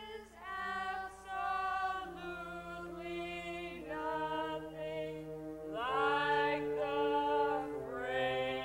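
A small group of voices singing sustained close-harmony chords with no accompaniment. The chords change every second or two, and the lowest part steps downward from chord to chord.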